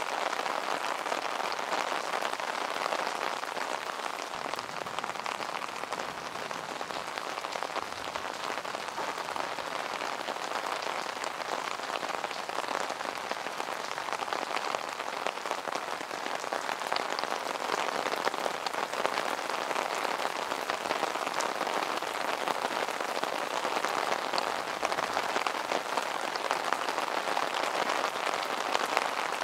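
Heavy rain falling on a wet city street: a steady, dense rush of rain with many separate drop hits, a little louder in the second half.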